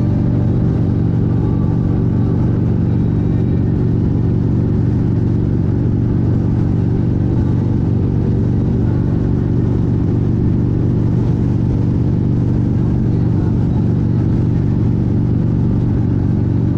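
Motorcycle engine running at a steady cruising speed, with an even, unchanging drone throughout.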